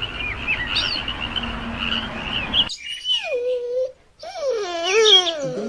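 Frogs chirping over a steady hiss of background noise, cut off abruptly about two and a half seconds in. A puppy then whines in long high cries: first one falling whine, then a wavering one that rises and falls.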